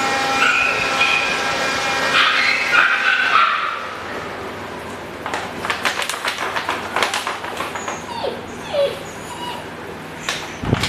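Samoyed puppy whimpering and whining in high-pitched bursts over the first few seconds, then a few short whimpers later among a run of light clicks and taps.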